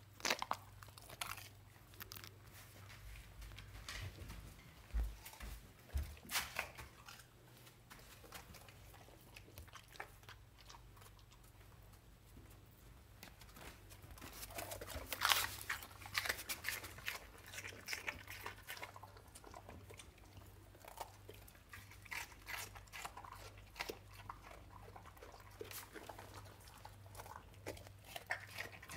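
A dog chewing and crunching food and licking at the floor, a run of irregular small clicks and crunches, over a faint steady low hum.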